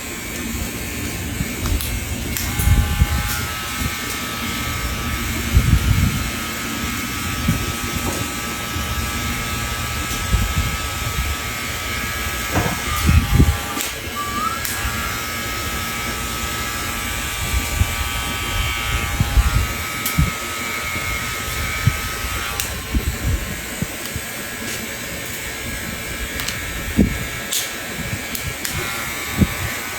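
Electric hair clippers buzzing steadily, with a steady whine from about two seconds in until the last third, and scattered low thumps.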